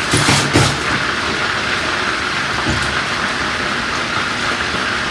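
Steady sizzling hiss of chicken thighs cooking in a large skillet, with a few light knocks in the first second as a baking sheet is handled.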